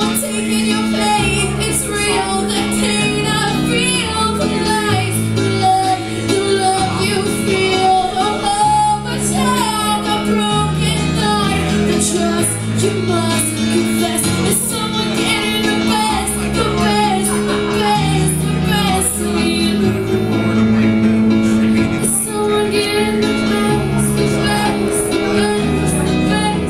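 Music: a song with a woman singing over sustained bass notes that change every second or two.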